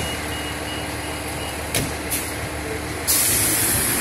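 Fire engine idling, with a faint, quick, repeating beep. Two short knocks come about two seconds in, like a cab door shutting. About three seconds in, a loud hiss of air starts suddenly and carries on, as the air brakes are released.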